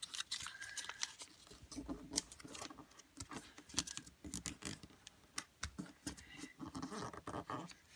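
Coloured origami paper being folded and creased by hand, rustling and crinkling in irregular soft crackles and clicks.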